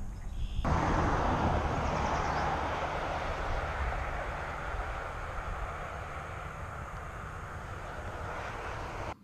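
Roar of a road vehicle passing on a nearby highway: it starts suddenly about a second in and slowly fades away.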